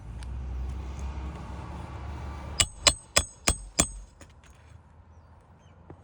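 A low, noisy scraping rumble, then five sharp metallic clicks in quick succession about a third of a second apart, starting a little past halfway.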